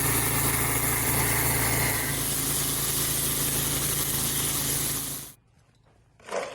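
A petrol pressure washer running, its small engine humming steadily under the hiss of the spray. It cuts off abruptly about five seconds in, and a brief faint sound follows near the end.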